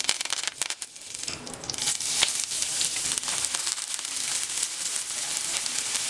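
Curry leaves spluttering and crackling in hot oil with cumin seeds and dry red chillies. About two seconds in, a louder, steadier sizzle takes over as chopped onion frying in the oil.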